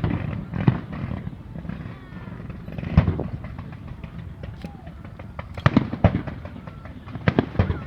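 Aerial fireworks bursting: separate sharp bangs at first, then a quick run of several bangs in the second half.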